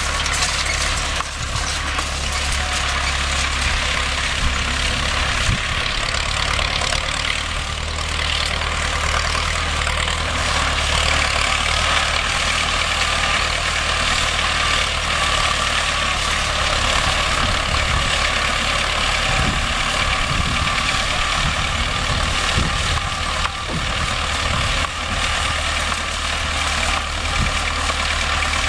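Vladimir T-28 tractor's T-40 air-cooled diesel engine running steadily under light load while pulling a wheel rake-tedder through hay.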